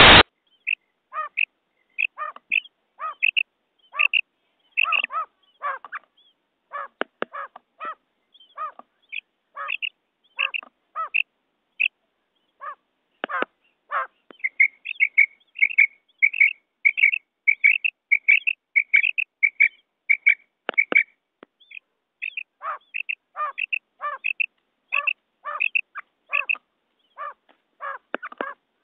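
Recorded calls of a hen quail, the lure call said to bring male quail running: short, high chirping notes repeated irregularly, bunching into a fast run of calls midway through, with a few sharp clicks.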